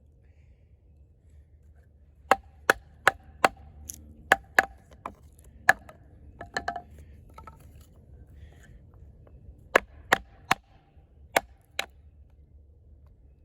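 Eafengrow EF-143 fixed-blade camp knife, with a thick 6.7-inch AUS-10 steel blade, chopping into a small log. A quick run of sharp wooden knocks begins about two seconds in, then a pause, then five more strikes near the end.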